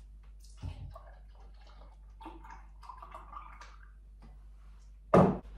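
A drink poured from a carton into a glass, a faint gurgling pour in the middle, followed near the end by one loud thump.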